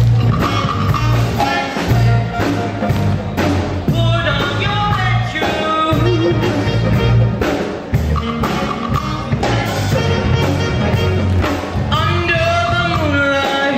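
Live band of saxophones, electric guitars, keyboard and drums playing an upbeat rock number, with a melody line coming to the fore about four seconds in and again near the end.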